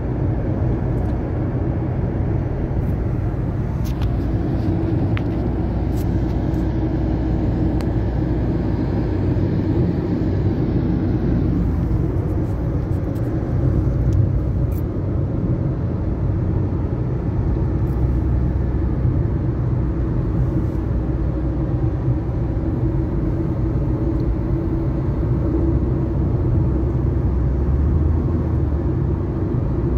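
Steady low rumble of a car on the move at highway speed, heard from inside the cabin: tyre and engine noise.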